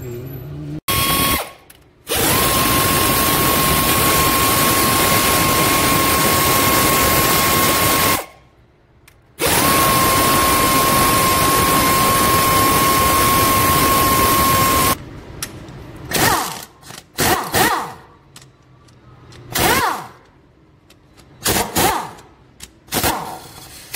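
Pneumatic wrench spinning out the camshaft bearing-cap bolts, with two long steady runs of about six seconds each, then a string of short trigger pulls in which it spins up and down in pitch.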